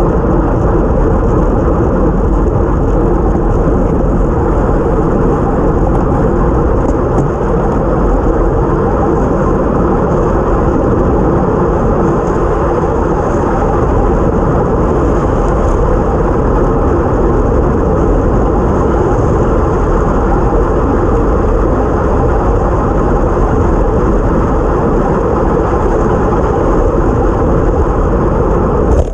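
Steady rush of wind buffeting a bike-mounted action camera's microphone, with tyre noise on a wet road, while riding at time-trial speed.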